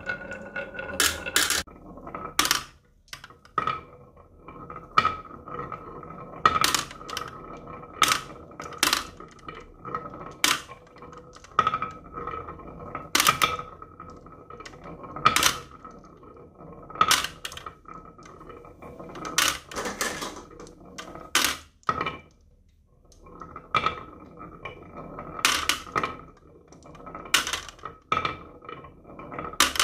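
Marbles rolling down carved wooden zigzag tracks with a steady rolling rumble. Sharp clacks come every second or two as they knock against the wood and drop into a plastic toy truck's trailer, clinking on the marbles already there. The rolling stops briefly twice.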